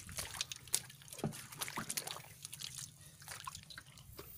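Small irregular splashes, drips and light clicks of shallow muddy water as feet wade through it and a hand scoops up snails.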